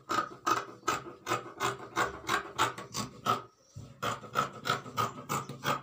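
Scissors cutting through fabric in quick repeated snips, about three or four a second, with a brief pause a little before four seconds in.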